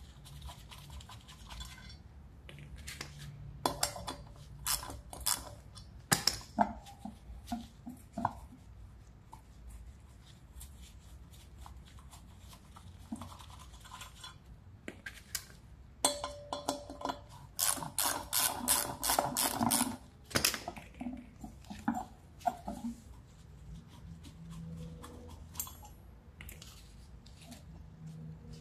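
Metal parts and hand tools clinking, knocking and scraping as they are handled. A dense run of rapid metallic clicks comes about two thirds of the way through, along with other scattered knocks.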